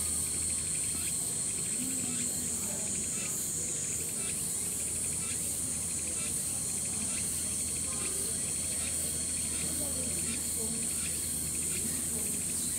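Autumn cicadas calling in a steady high-pitched drone, with a fainter, fast pulsing insect trill beneath it.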